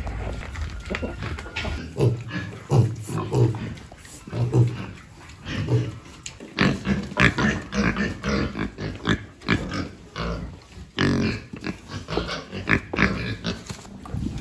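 Pigs grunting, a long run of short calls that grows busier about halfway through.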